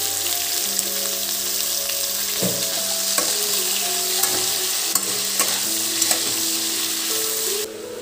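Diced potato and green vegetable pieces sizzling in hot oil in a kadai, stirred with a spatula that clicks against the pan now and then. The sizzle cuts off suddenly near the end.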